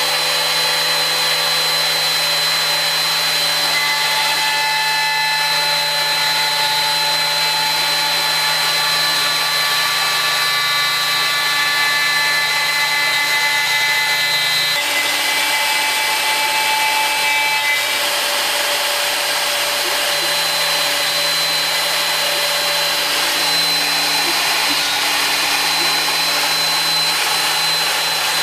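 DeWalt router on a home-built CNC machine running and cutting through compact laminate, taking off the last 2 mm of the panel's openings and holes. A steady high whine over a low hum, with the pitch of the cut shifting around 4 s and again around 15 s.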